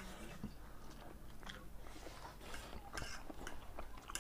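Faint eating sounds: people chewing noodles and bitten boiled egg, with scattered small mouth clicks and ticks.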